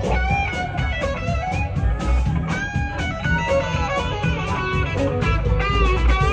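Live band playing a blues-rock song: electric guitar to the fore with bending notes, over bass and drums.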